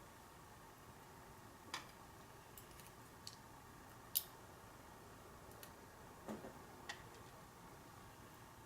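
A few faint, separate small clicks and ticks of metal lock parts being handled while the lock's core is taken apart and its pins are removed.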